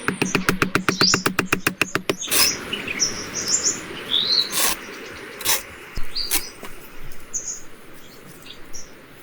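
Birds chirping with short, quick tweets. For about the first two seconds they sit over a loud, fast tapping or knocking, about eight strokes a second. After that there is a steady hiss with a few single sharp knocks.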